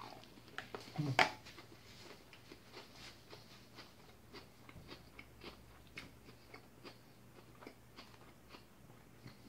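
Someone chewing a mouthful of leafy green salad: soft, irregular crunches a few times a second, with one louder knock about a second in.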